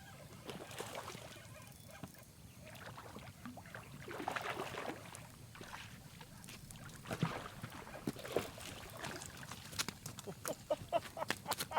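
Water splashing in irregular bursts, growing into quick, choppy splashes near the end, as a hooked fish thrashes at the surface while it is brought in.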